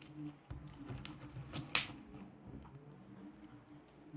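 Faint handling sounds of slime being mixed by hand with tempera paint: a few soft clicks and squishes in the first two seconds, over a low steady hum.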